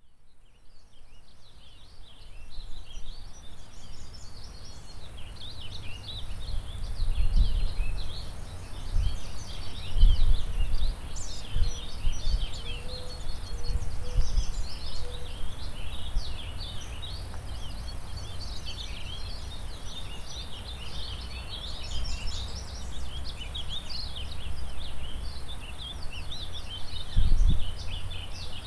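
A springtime forest dawn chorus: many songbirds chirping and trilling at once over the steady rush of a river. Low gusts of wind rumble now and then, loudest about ten seconds in and again near the end. The sound fades in at the start.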